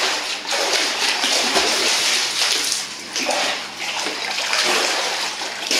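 Pond water splashing and sloshing as a person moves through it, ducking his head at the surface; the splashing comes in uneven swells.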